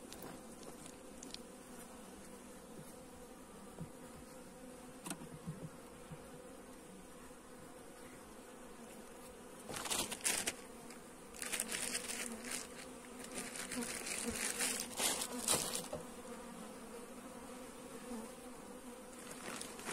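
Honeybees buzzing steadily over an open hive, an even low hum. From about ten seconds in, several seconds of scraping and rustling as the wooden hive frames are handled.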